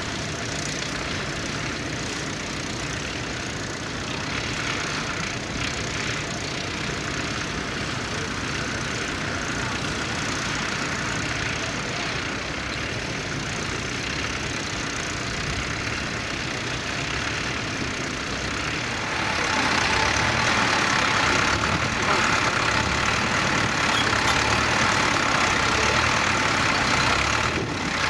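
Vintage tractor engine running steadily under load as it pulls a plough. About two-thirds of the way in, the sound jumps louder and brighter as a second tractor's engine is heard close by.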